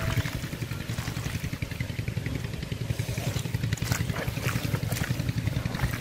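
A small engine running steadily with a fast, even pulse, with a few faint clicks partway through.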